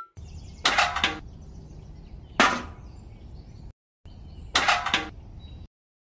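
Three sharp knocks or clanks, about two seconds apart, over a low background rumble that cuts off suddenly near the end.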